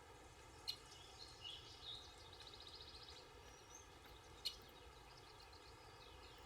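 Near silence with faint birds chirping, including a short high trill, and two brief sharp clicks, one about a second in and another about two-thirds through.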